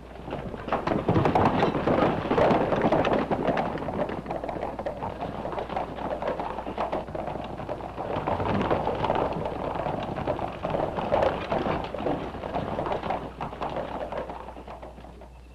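Hoofbeats of a group of horses galloping on dirt, a dense irregular clatter that fades out near the end.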